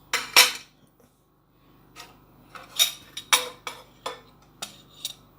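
Metal kitchen utensils clinking against a plate as garlic is peeled and prepared: two loud clattering knocks at the start, then a string of short, sharp clinks.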